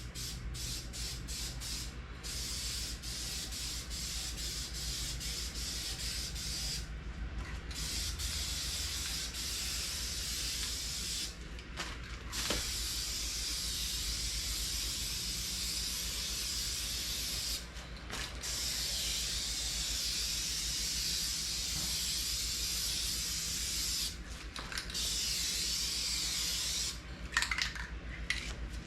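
Aerosol rattle can of automotive base-coat paint spraying in long hissing passes of several seconds each, separated by brief pauses, after a few quick short spurts at the start.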